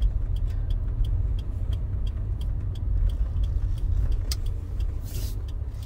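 Fourth-generation Subaru Forester driving, heard from inside the cabin: a steady low rumble of road and engine noise, with light regular ticks about three a second and a brief hiss about five seconds in.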